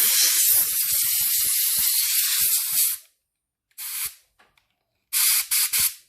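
Compressed-air hose blasting dust out of a keyboard: one long hiss of about three seconds, a short burst, then several quick blasts near the end.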